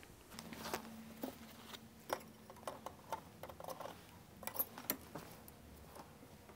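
Faint, scattered clicks and light metallic taps from hands hooking a spring back onto a recliner's metal mechanism, with a few sharper clicks about two seconds in and again near five seconds.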